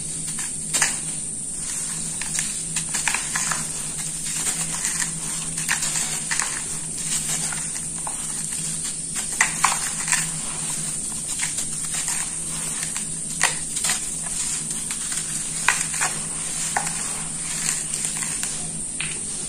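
A molded block of dry sand-cement mix being crumbled by hand into a metal basin: gritty crunching and sand trickling, with many small crackles and a few louder sharp crunches. A steady hum and hiss runs underneath.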